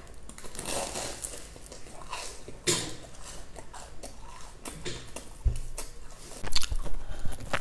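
Biting and chewing a deep-fried red bean paste bun, its crisp crumb-topped crust crackling and crunching between the teeth. The crunches come in scattered clicks and grow denser and louder near the end.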